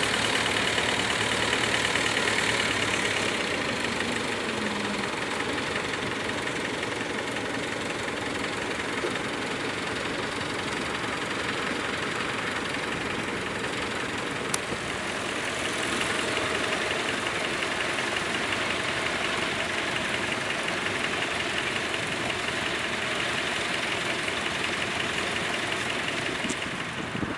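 Tractor engine running steadily, with a single sharp click about halfway through.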